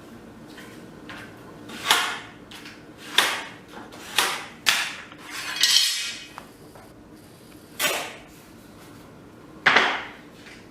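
Vinyl floor planks being worked by hand: about seven short, sharp scrapes and clacks, irregularly spaced a second or so apart.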